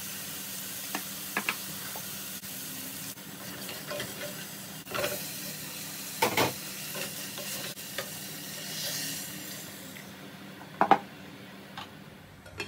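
Onions frying and sizzling steadily in an aluminium saucepan on a gas hob, with a wooden spoon knocking and scraping against the pan as spice and vegetable chunks are stirred in. Near the end the sizzle dies down as liquid is added.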